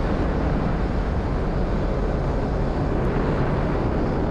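Falcon 9 rocket's nine first-stage Merlin engines during ascent: a steady, deep rumble, heaviest in the low end.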